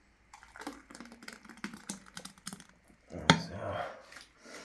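Light clicks and taps of things being handled, then one sharp click about three seconds in, followed by a short rough rustling noise.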